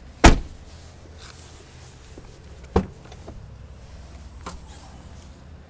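A 2011 Jeep Compass door slams shut with a loud thud just after the start, then a lighter clunk a little under three seconds later and a faint click around four and a half seconds, as the doors and rear liftgate are worked.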